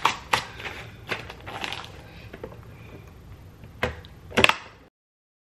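Ears of corn and a plastic vacuum-sealer bag being handled: irregular clicks, knocks and light rustling, with two sharp clicks just before the sound cuts off to silence near the end.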